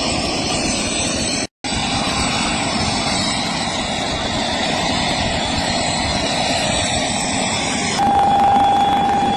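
Jet aircraft engines running on an airport apron: a steady rushing noise, with a steady high whine that comes in near the end. The sound cuts out for a moment about a second and a half in.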